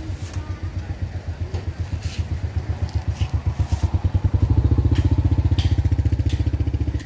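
Motorcycle engine running close by with a rapid, even putter, growing louder over the first few seconds and then holding steady. A few light knocks sound over it.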